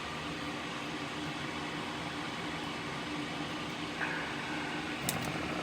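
Steady mechanical hum and hiss. A faint high tone joins about four seconds in, and a couple of light ticks come near the end.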